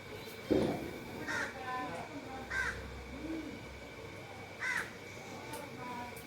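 Indian ringneck parakeet giving three short, harsh squawks a second or two apart, with softer low chatter between them. A single sharp knock about half a second in is the loudest sound.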